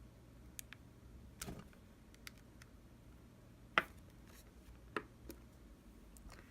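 Scattered light clicks and taps of small objects being handled, about six in all, the loudest a little past halfway, over a faint steady low hum.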